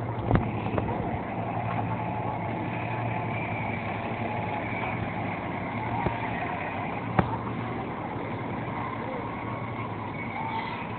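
Steady outdoor street noise with a low hum and faint distant voices, broken by two sharp clicks, one just after the start and one about seven seconds in.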